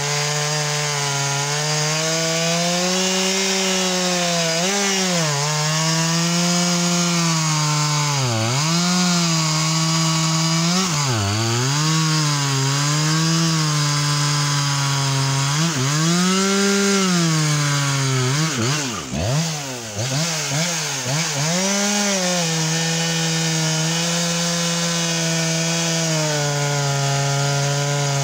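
Makita 7300P two-stroke chainsaw with a Stihl RS chain on a 20-inch bar, cutting through a large beech log at full throttle. The engine note sags and recovers several times as the chain bites into the wood, with a cluster of quick dips about two-thirds of the way through.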